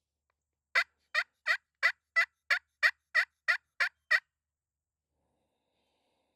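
A series of eleven sharp turkey yelps, evenly spaced at about three a second, starting about a second in and stopping after about three and a half seconds. This is the hen yelping series used to call in a tom.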